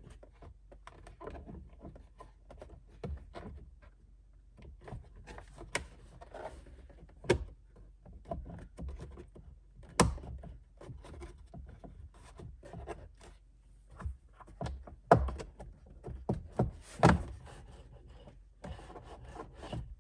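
Plastic dash trim panels of a 2016 Ford F-150 being handled and fitted back into place: a string of clicks, taps and knocks, with sharper knocks about 7, 10, 15 and 17 seconds in.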